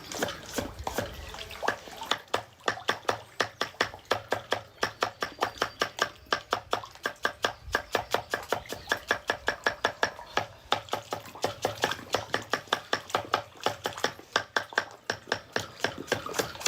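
Water splashing or lapping in a fast, even rhythm, about four pulses a second.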